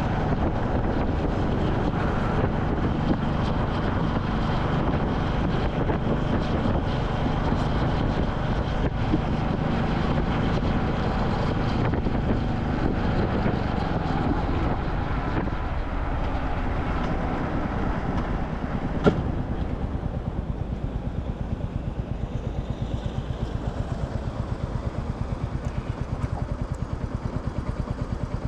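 Royal Enfield Classic 350's single-cylinder engine running under way, with wind rushing over the microphone. After a sharp click about two-thirds of the way through, the wind drops away and the engine settles into an even, pulsing idle.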